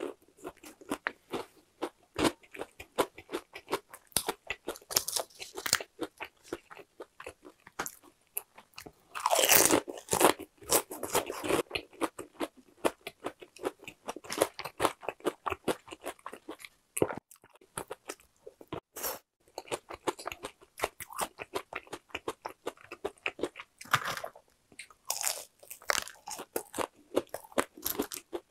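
Close-miked crunching and chewing of crispy, seasoned boneless fried chicken: a continuous run of crackly crunches with several louder bites, the loudest about ten seconds in.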